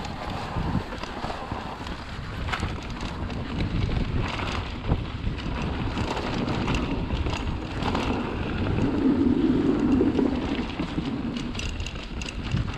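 Wind rushing over a GoPro microphone while a Haibike Xduro Nduro e-mountain bike rides down a rocky trail: tyres rolling over stones with many small knocks and rattles, louder for a couple of seconds about nine seconds in.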